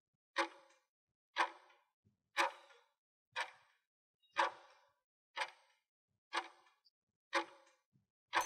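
Clock-tick sound effect for a quiz countdown timer, ticking once a second, nine ticks in all.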